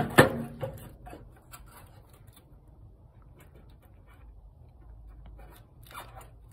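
Handling sounds: two sharp knocks right at the start, then light, scattered clicks and taps over a faint low hum.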